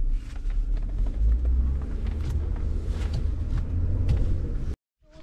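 Car driving, heard from inside the cabin: a steady low rumble of engine and tyres on the road. It cuts off abruptly near the end.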